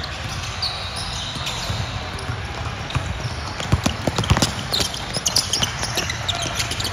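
Basketball game on an indoor court: the ball bouncing as it is dribbled up the floor, with sharp taps and quick squeaks of shoes on the court, busiest from about halfway through.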